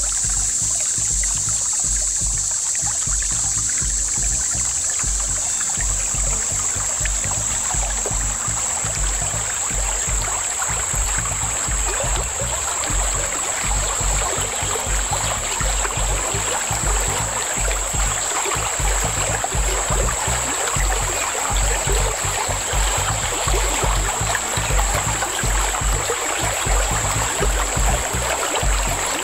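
Water rushing over a shallow creek riffle, growing louder from about eight seconds in as the kayak nears the fast water, over a steady high-pitched whine and low, uneven rumbling.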